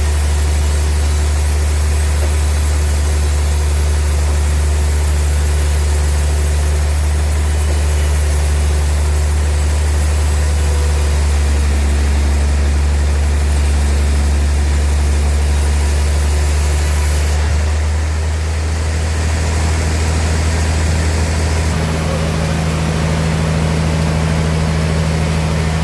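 Sawmill machinery running with a steady, loud, low engine-like hum. The tone shifts about two-thirds of the way through and again near the end.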